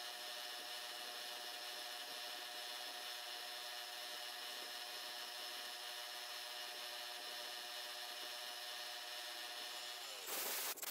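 Milling machine spindle running steadily while a small end mill cuts a hinge pocket in metal: a steady whine with a light scraping of the cut. Near the end the whine falls in pitch as the spindle slows, and a short, louder burst of noise follows.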